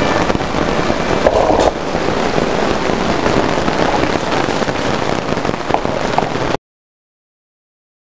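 Torrential rain falling on a tarp shelter and standing floodwater, a dense steady hiss that cuts off suddenly about six and a half seconds in.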